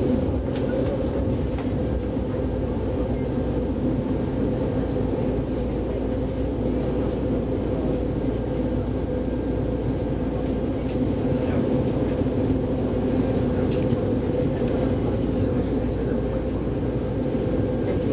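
Steady running noise of a passenger train heard from inside the carriage while it travels at speed, a constant rumble and hum with a few faint ticks.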